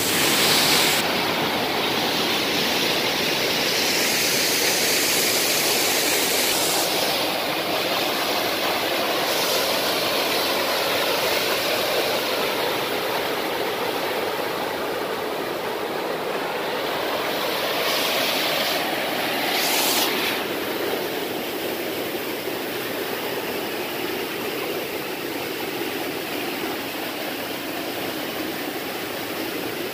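Small waterfall pouring over boulders into a rocky stream: a steady rush of splashing white water, briefly louder about twenty seconds in.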